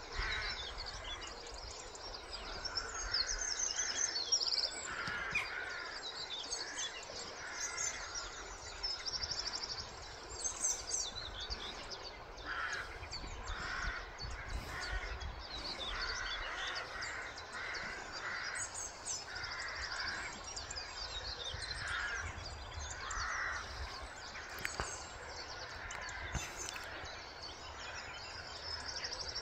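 Crows cawing repeatedly, with small birds chirping high above them, over steady background noise and a low rumble.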